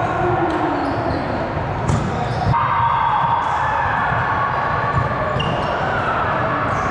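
Volleyballs thudding as they are hit and bounce on a gym floor: several sharp thuds over echoing hall noise, with scattered voices.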